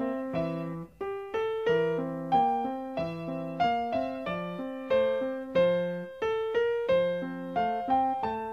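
Background piano music: a gentle, evenly paced melody of struck notes over lower accompanying notes, each note fading away after it is played.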